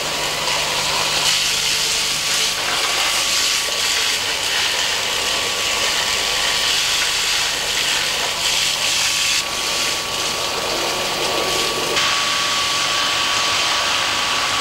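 Loud, steady machine noise with a hissing rush like a power tool or drill running. It changes character abruptly a couple of times, near the end most plainly.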